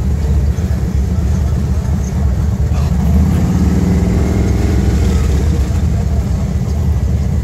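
Freight train's covered hopper cars rolling past on the rails: a steady low rumble of steel wheels, with a hum that swells and fades about halfway through.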